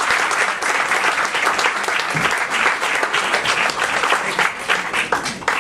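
Audience applauding, the clapping thinning out into scattered claps and dying away near the end.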